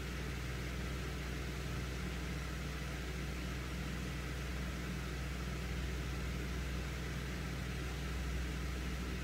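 Steady low hum with an even hiss over it, unchanging throughout, with no distinct clicks or scrapes.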